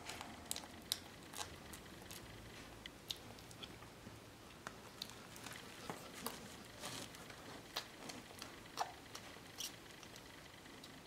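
Newborn puppies suckling at their mother's teats: faint, irregular wet smacking and clicking sounds.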